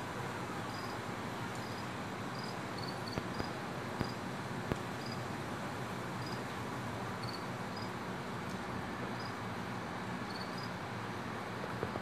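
Insects chirping outdoors at night: short high chirps, singly or in quick pairs, about one a second, over a steady background hiss, with a few faint clicks.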